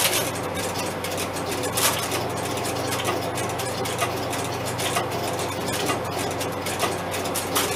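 Relays and crossbar switches of a 1971 Fujitsu crossbar PBX clicking at irregular intervals over a steady hum, as the switch sets up a call to a busy line.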